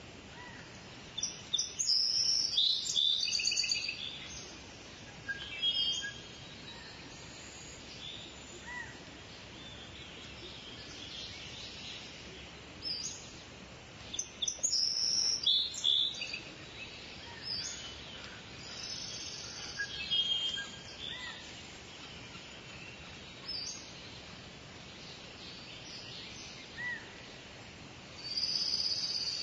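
Birds singing in short bursts of high chirping phrases every few seconds, over a steady background hiss.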